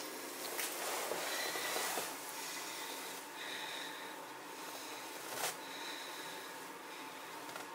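A person breathing hard close to the microphone, with snorting, whistly breaths that swell and fade. There is one sharp click about five and a half seconds in.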